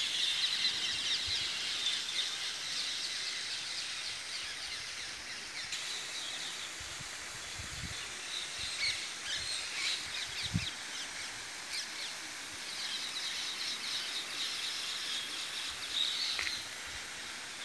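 Many small birds chirping and twittering together in a dense, continuous chorus that swells and thins. There are a couple of soft low thumps around the middle.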